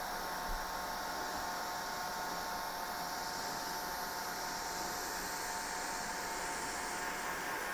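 Hair dryer running steadily: a constant rush of air with a steady motor whine.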